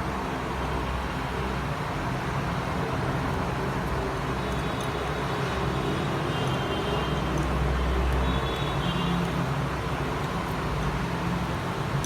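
Steady background rumble and hiss that swells slightly in the middle, with faint high tones in the middle.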